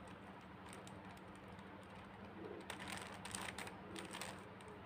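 Plastic 3x3 puzzle cube being turned by hand: faint, quick clicks and rattles of its layers, bunched into short runs of turns about a second apart.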